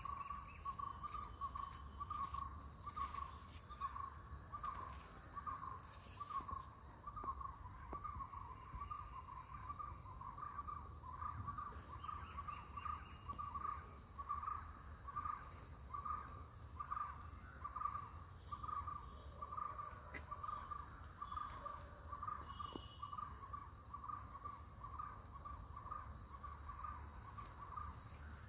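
Outdoor insect and bird ambience: a steady high insect drone, over which a short call repeats about twice a second without a break.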